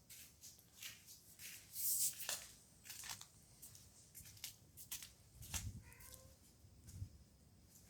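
Irregular light taps and clicks on roof tiles, heard from the room below, coming in uneven clusters rather than a steady rhythm; the resident blames a neighbour deliberately knocking on the tiles.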